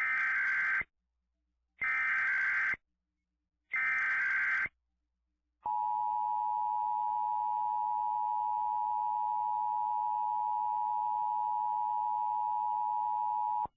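Emergency Alert System tones. First come three short bursts of warbling SAME header data, about two seconds apart. Then the steady two-tone EAS attention signal is held for about eight seconds, the signal that an emergency alert message is about to be read.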